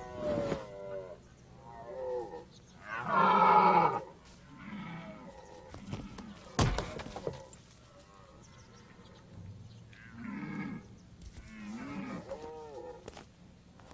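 Red deer stags roaring several times, with deep calls that swell and fall, the loudest about three seconds in. A single sharp crack that rings on briefly comes about six and a half seconds in.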